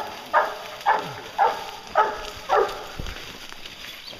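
Hunting hound barking in an even run of five barks, about two a second, stopping near the end.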